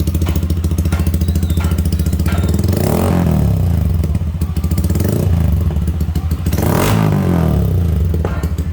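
Yamaha Sniper 155's single-cylinder four-stroke engine idling through an aftermarket conical tube-type exhaust, with two brief throttle blips a few seconds apart.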